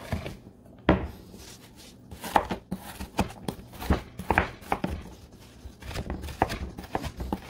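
Kitchen knife chopping through a slab of stacked raw bacon on a wooden cutting board: irregular knocks of the blade on the board.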